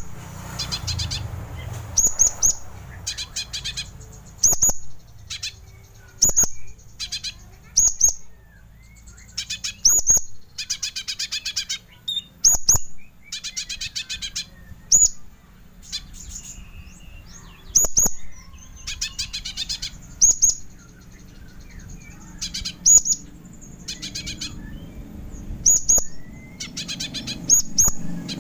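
Kolibri ninja sunbird song: sharp, very high chirps alternating with short bursts of rapid trilling, a new phrase every second or two. Recorded as a masteran to teach captive birds the song.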